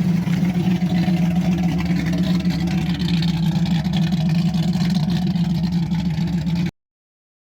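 1965 Ford Mustang's engine and exhaust running steadily, a constant low hum, then cutting off abruptly near the end.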